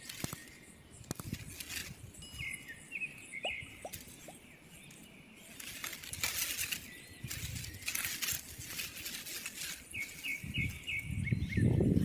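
Rustling and wing flapping, with two short runs of quick high chirps.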